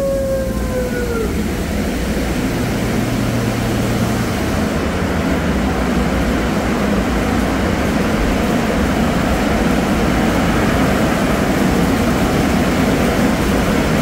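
Steady loud rushing roar of car-wash tunnel machinery running, with a falling wail fading out about a second in.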